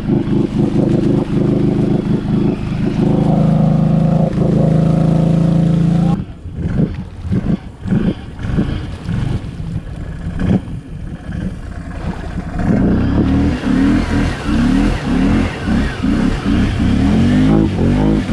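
Can-Am ATV engine running at steady throttle, then blipping on and off unevenly for several seconds, then revving hard with repeated rising sweeps in pitch through the last third.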